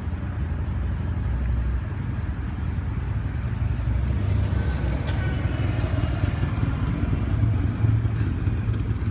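Commercial air-conditioning condensing units running with a steady low drone, including a condenser fan motor humming as it strains, its blade barely creeping along: a motor that is failing and running hot.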